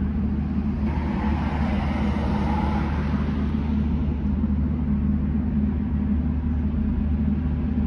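Steady low engine rumble of a running vehicle, with a brief rise of hiss about a second in.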